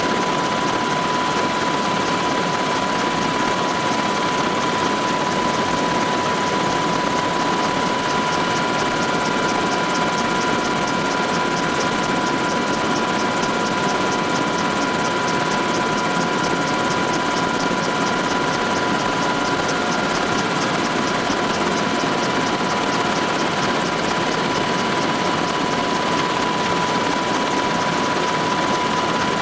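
Military helicopter in flight, heard from on board: steady engine and rotor noise with a high, steady whine running through it.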